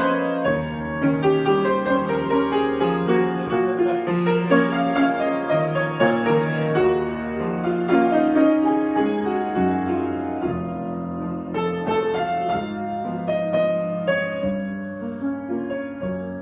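Solo piano improvisation: flowing chords and melody over held low bass notes, growing softer near the end.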